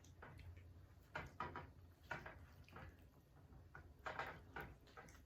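Faint eating sounds over low room hum: a few scattered soft clicks and taps, such as a fork on a bowl and chewing.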